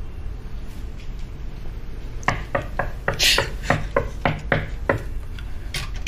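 A quick series of about nine knocks on a wooden door, about three or four a second, starting about two seconds in and stopping about two and a half seconds later, with a short hiss partway through.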